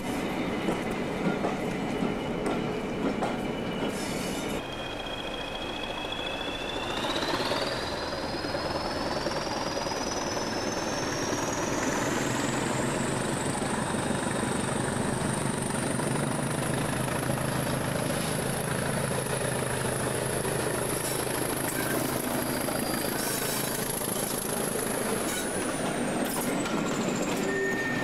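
Class 20 diesel locomotive D8020's English Electric turbocharged engine pulling away with a train of coaches. Its high turbocharger whistle climbs steadily in pitch over about ten seconds, holds, then falls away near the end, over the engine's rumble and the rolling of the coaches. Before this, the coaches of an arriving train roll past for a few seconds.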